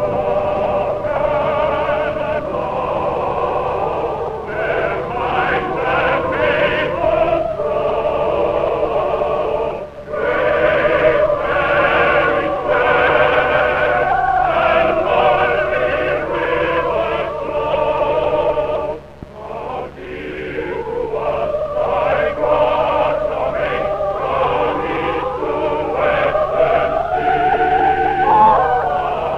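Mixed choir singing in full voice, with two short breaks between phrases about ten and nineteen seconds in, over a steady low hum.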